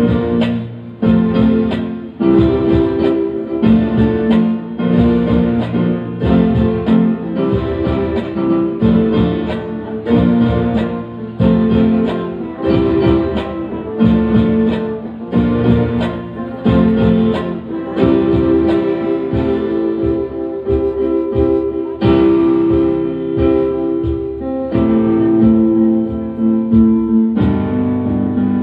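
Live instrumental music from a small band: an electric guitar and electronic keyboards carry the melody and chords over a hand drum keeping a steady beat.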